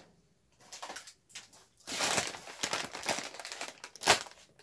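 Crinkling and rustling of a plastic snack-chip bag being handled, a few faint crackles at first, then steady crackling from about two seconds in with one sharp loud crinkle near the end.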